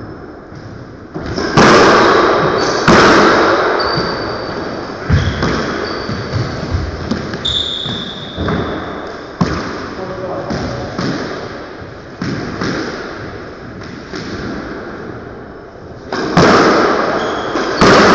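Squash rally in an enclosed court: the ball cracks off rackets and walls again and again with an echo, the hardest hits a couple of seconds in and again near the end, with short sneaker squeaks on the hardwood floor.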